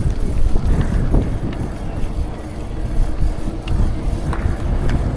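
Wind rumbling on the microphone while riding a bike, with a few faint clicks and rattles over it.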